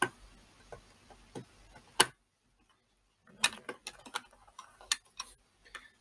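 Small Phillips screwdriver working the tiny screws that hold the hard drive in an HP ZBook 17 G3 laptop, making irregular light clicks and ticks. The loudest click comes about two seconds in, followed by a brief silence and then a quicker run of clicks.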